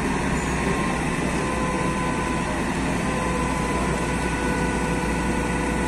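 Diesel engine of a Hino truck-mounted crane running steadily, with a thin steady whine over it.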